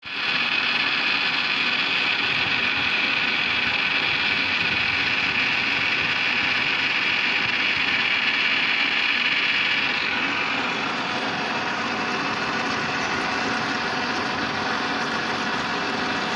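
Lathe running steadily while turning a pin, with a strong high-pitched whine over a mechanical hum. About ten seconds in the sound shifts and becomes a little quieter.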